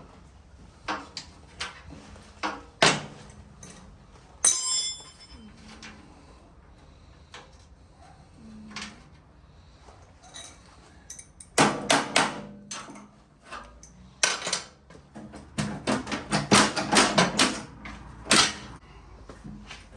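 Hand tools and loose metal parts knocking and clinking while the rear mudguard of an International A414 tractor is unbolted and removed. There are scattered single knocks, one ringing metallic clang about four seconds in, and then fast runs of clicks and knocks midway and again later on.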